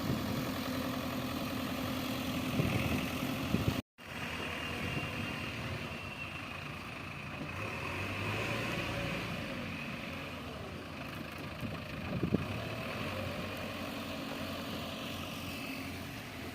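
Heavy diesel engine running steadily, with a brief dropout about four seconds in.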